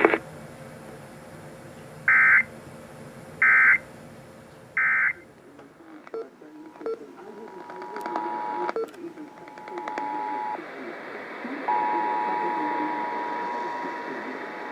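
Emergency Alert System signalling: three short bursts of the digital data tone, about a second and a half apart, which is the end-of-message code closing the warning. About seven seconds in comes the two-tone attention signal, a steady dual tone near 853 and 960 Hz, with a few clicks. It breaks off briefly and then starts again.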